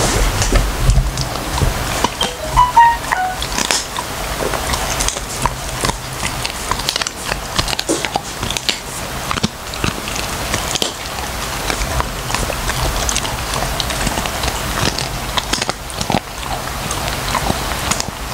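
A labradoodle crunching a bone with its teeth: a run of irregular sharp cracks and crackles, with a faint low hum underneath.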